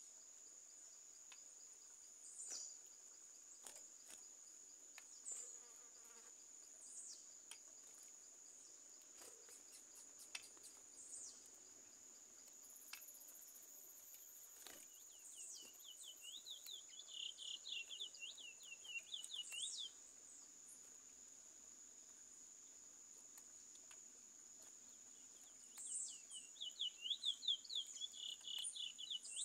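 Curió (chestnut-bellied seed finch) singing: two runs of fast, repeated whistled notes a few seconds each, the second near the end, with a few short high chirps between. A steady high insect whine runs underneath.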